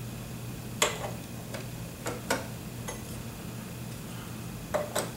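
Sharp metal clicks and knocks of the brass neck of a Levante bass saxophone being handled and fitted onto the body, about half a dozen in all: the loudest about a second in, then close pairs just after two seconds and near the end, over a steady low hum.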